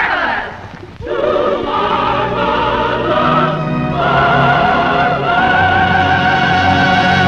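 Orchestra and singing voices of a 1930s film-musical number building to a held closing chord, a high voice sustaining a long wavering note from about four seconds in.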